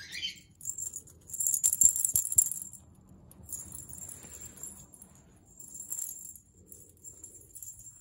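A plastic toy ball with a bell inside jingling in several short bursts as a green-cheeked conure pushes and rolls it across carpet, with a few sharp clicks about two seconds in.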